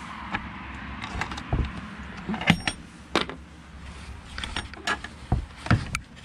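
Damp-swollen wooden nesting-box parts creaking and knocking as they are worked by hand, with irregular sharp clicks and some rustling.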